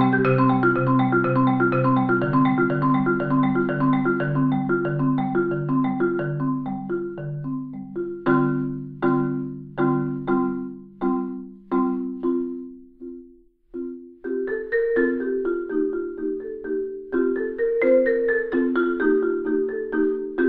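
Solo Saito marimba played with four mallets. A dense stream of low notes thins and fades into a few single, spaced strokes, stops briefly about two-thirds of the way in, then picks up again with a quicker passage in a higher register.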